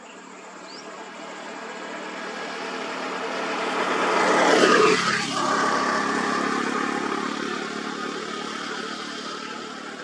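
A motor vehicle approaches and passes close by. It is loudest about halfway through, its engine note drops in pitch as it goes past, and then it fades.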